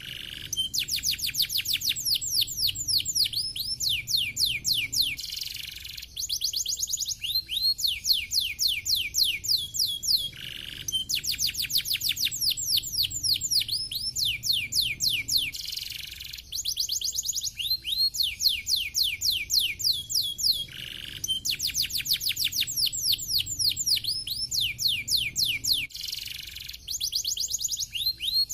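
Domestic canary singing: fast trilled phrases of quick, repeated falling high notes, each phrase lasting a few seconds and split from the next by a short break.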